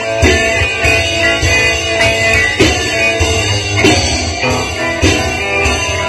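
Band music led by guitar, with drums keeping a steady beat.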